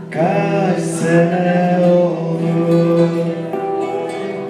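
A man singing in long held notes over acoustic guitar accompaniment.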